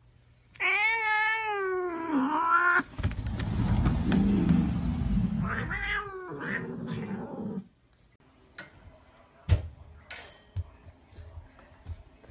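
Domestic cat yowling: a long wavering call starting about half a second in, then a low rumbling noise with a second yowl over it, all cutting off abruptly about seven and a half seconds in. After that only faint clicks and one sharp tap.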